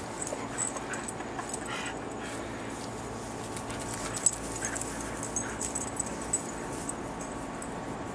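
Husky giving a few short, faint whines and yips while playing. One sharp click comes about four seconds in.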